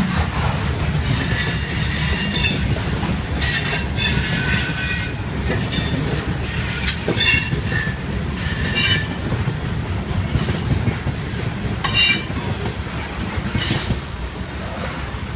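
Freight cars of a passing train rolling by with a steady low rumble, and several short, high-pitched wheel squeals along the way. The sound eases off near the end as the last cars pass.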